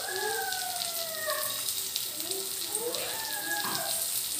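Oil sizzling and crackling in a non-stick frying pan as green chillies and chopped garlic fry. A voice is heard twice over the frying, each time in drawn-out, falling tones.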